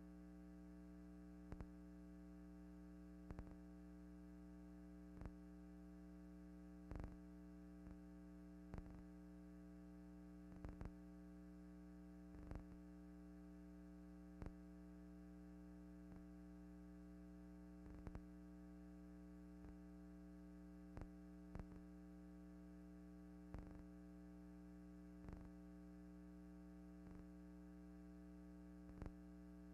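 Near silence: a steady low electrical hum with faint clicks every second or two, at uneven intervals.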